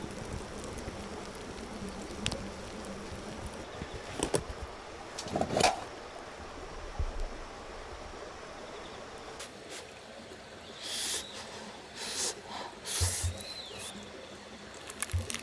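Wood embers in a campfire grill crackling and popping, with two louder pops near the middle. A few short hissy noises follow near the end.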